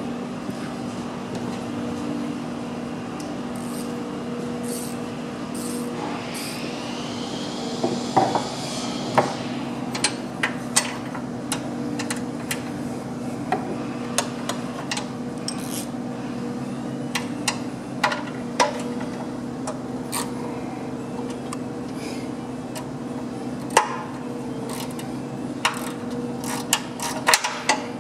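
Steel wrenches clicking and clanking on nuts as the hydraulic pump's mounting nuts are tightened to hold the new belt's tension: irregular sharp metallic clicks, more frequent in the second half, over a steady low hum.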